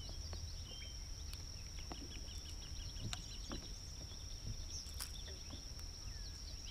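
Quiet outdoor wetland ambience: a steady high-pitched hum throughout, with scattered faint chirps and small clicks and knocks over a low rumble.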